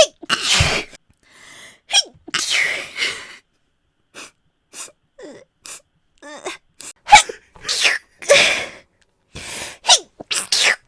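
A woman sneezing over and over: a quick run of short, sharp sneezes, a quieter stretch of small breaths and sniffs, then another dense run of sneezes, some with a high voiced squeak.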